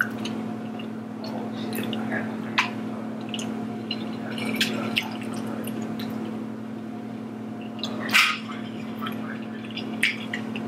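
Close-up mouth sounds of eating: wet chewing and lip smacks with scattered small clicks, and a louder noisy burst about eight seconds in, over a steady low hum.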